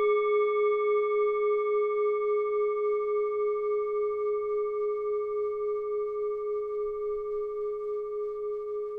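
A singing bowl rings on after a single strike, one low tone over fainter higher overtones. It fades slowly, with a gentle wobble about three times a second.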